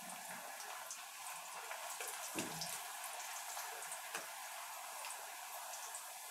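Small puris deep-frying in hot oil in a kadai: a faint, steady sizzle with scattered small crackles.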